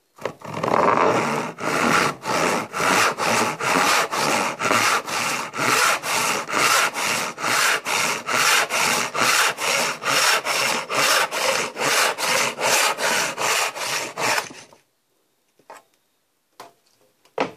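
Spear & Jackson 22-inch hand crosscut saw cutting through a wooden rail, in quick even strokes of about two or three a second. The sawing stops about fifteen seconds in, as the cut goes through, and a few light knocks follow.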